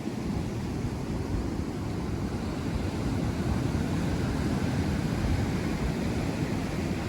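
Wind buffeting the microphone over the steady wash of ocean surf, a low rumble that gets a little louder partway through.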